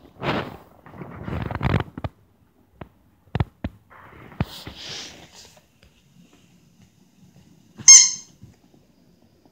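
Two-month-old Dalmatian puppy at rough play: scuffling and a few sharp clicks, then near the end one short, loud, high squeak.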